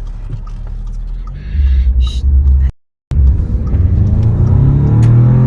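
Audi S3 8V's turbocharged 2.0-litre four-cylinder engine: a low steady rumble that grows louder for about a second, a sudden break to silence, then the engine running under load with its pitch slowly rising as the car accelerates.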